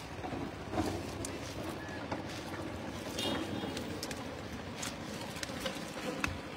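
Clumps of wet water hyacinth being pulled apart and picked through by hand in a fishing net: rustling, with scattered sharp clicks and snaps, over a steady low background noise.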